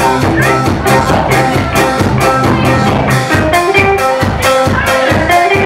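Live rock band playing: a drum kit keeps a steady beat under guitars, and the low held bass notes give way about three seconds in.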